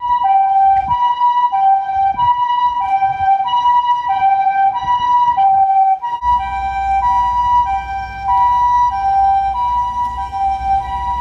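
Japanese ambulance two-tone siren, the "pee-poh" call, alternating a higher and a lower steady tone about two-thirds of a second each. A low rumble runs underneath from about halfway through.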